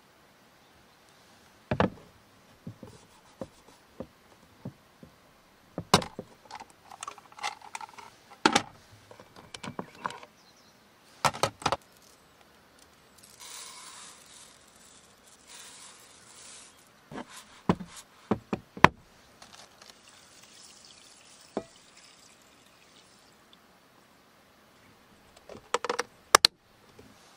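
Dry rice poured into the pan of a Thanko compact electric rice cooker with a steady hissing rattle, then a softer pour of water to soak the rice. Sharp knocks and clicks of cookware being handled come throughout, and the cooker's lid clacks shut near the end.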